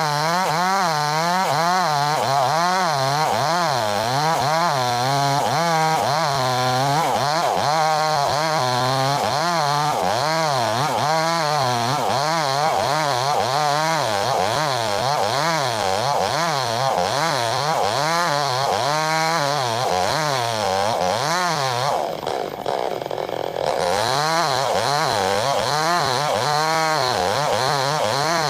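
Chainsaw running under load while ripping a log lengthwise, its engine pitch rising and falling over and over as the chain bites. Near the end it briefly eases off, then picks back up.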